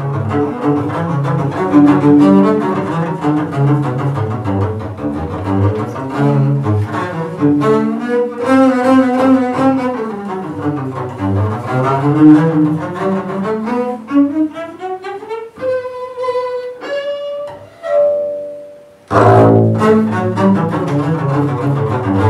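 Three-string double bass bowed solo: a passage of quick running notes that climbs in a long rising run to high held notes. About three quarters through, the sound dies away for a moment before low notes start again.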